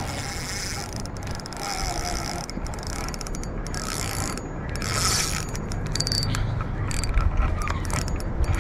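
Spinning reel being cranked, its gears and ratchet making a fast run of clicks, as the rod bends under a hooked fish that the angler takes for a carp.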